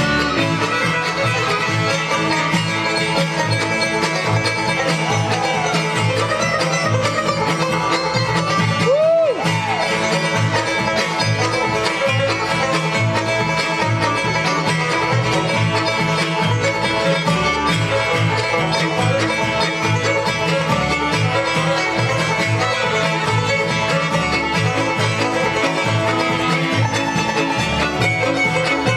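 Live bluegrass band playing an instrumental passage, banjo to the fore with guitar and fiddle, over a steady bass pulse.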